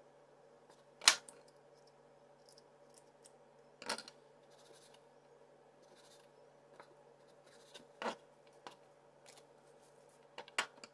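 Chef's knife slicing raw chicken thighs and striking a plastic cutting board: four sharp knocks a few seconds apart, with light scraping and ticks between them, over a faint steady hum.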